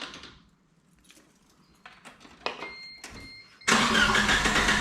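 A few light clicks, then about three and a half seconds in the Geo Tracker's four-cylinder engine is cranked on the starter in an attempt to start it. The distributor has just been reinstalled and the ignition timing is in doubt.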